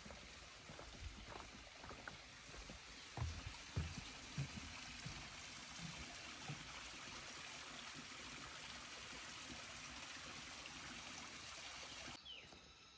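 Steady rush of a mountain stream, with a few footsteps on the trail in the first five seconds; the sound cuts off abruptly near the end.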